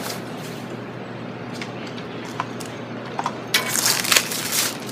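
Typing on a Das Keyboard Professional Model S with tactile, non-clicky Cherry MX Brown switches: a few scattered keystrokes, then a quick flurry of typing about three and a half seconds in.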